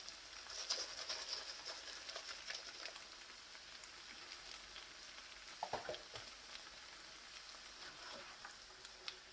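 Vegetables in a pan with a little chicken broth sizzling and bubbling quietly, with a steady crackle. There are occasional small ticks and a brief louder knock about six seconds in.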